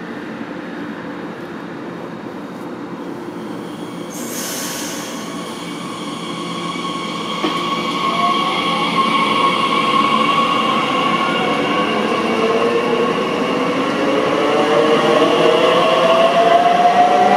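Electric multiple unit, a DB Talent 2 (class 442), pulling away and passing close by. Its traction motors and inverters make a saw-like electric whine that slowly rises in pitch as the train gathers speed, while the running noise grows steadily louder. A brief hiss comes about four seconds in.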